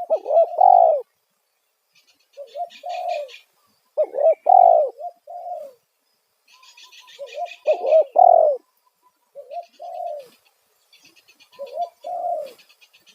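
Spotted dove cooing: loud repeated coo phrases, about six, each lasting around a second with short pauses between, in the single-note 'kuk satu' lure-call style. A faint rapid high chirping from another bird runs alongside several of the phrases.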